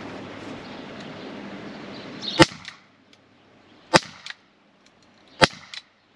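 Kimar LTL Bravo .50-calibre CO2-powered rubber-ball defence pistol firing three shots about a second and a half apart, each a sharp crack. A steady background hiss stops just before the first shot.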